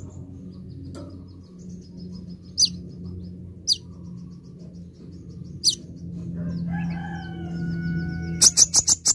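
Male Van Hasselt's sunbird (kolibri ninja) calling: thin, high twittering chip trains with a few sharp downward-sweeping notes, then a quick burst of loud, sharp chips near the end. A rooster crows in the background about two-thirds of the way in.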